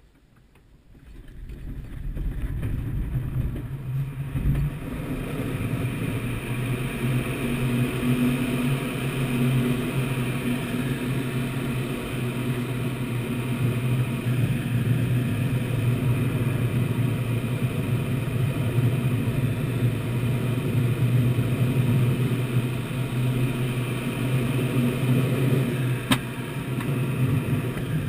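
Airflow noise in a Twin Astir glider's cockpit during a cable launch: it builds quickly over the first couple of seconds as the glider accelerates across the grass, with a thud about four and a half seconds in, then holds as a steady loud rush with a low hum through the climb. A single sharp click sounds near the end.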